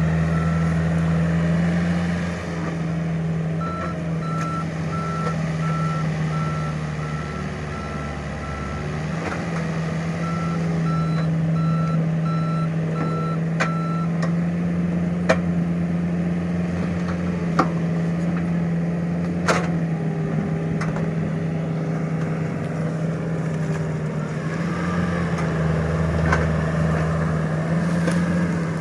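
Heavy diesel machinery running steadily, with its travel or reversing alarm beeping in two spells at about two beeps a second. A few sharp knocks come later.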